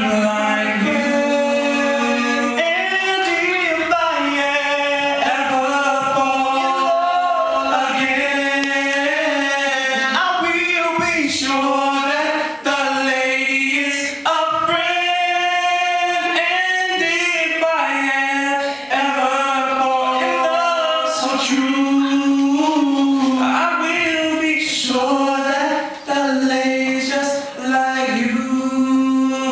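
Male vocal trio singing a cappella through microphones, several voices together holding long notes and gliding between them, with no instruments.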